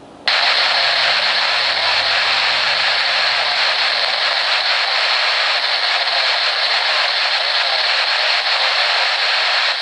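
Icom IC-R5 and Yaesu VR-120D airband scanners hissing through their speakers for about nine and a half seconds. The hiss cuts in and out sharply, as a transmission on 121.900 MHz opens the squelch with no voice on it, only noise.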